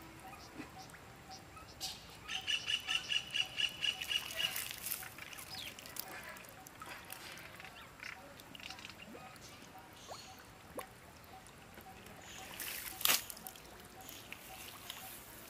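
A bird calling in a quick run of about ten harsh notes, roughly four a second, a couple of seconds in. One sharp, loud strike comes about thirteen seconds in.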